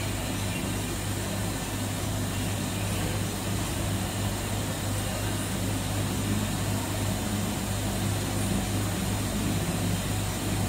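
A 3-ton-a-day tube ice machine running, its refrigeration compressor giving a steady low mechanical hum.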